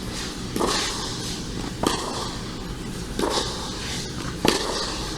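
Tennis rally: a ball struck by string-bed rackets four times at an even pace, about one shot every one and a quarter seconds, with a few quieter scuffs between.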